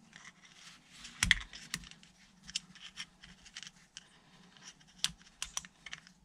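Small metal clicks and scratches of a steel O-ring pick working O-rings in the grooves of a hydraulic camper jack's cylinder part, with one sharper click a little over a second in.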